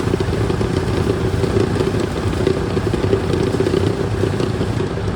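Freightliner Cascadia hood mirror buzzing and rattling fast and steadily on its mount while the truck runs, with the engine's low hum beneath. The mirror has worked loose over time and now vibrates constantly.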